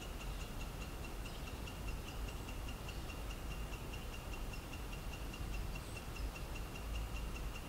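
Quiet forest ambience: a steady, even run of faint high-pitched ticks, about five a second, over a low rumble.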